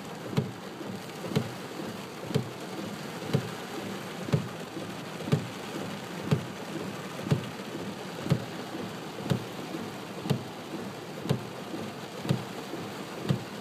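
Heavy rain on a moving car, a steady hiss, with a short low thump repeating about once a second.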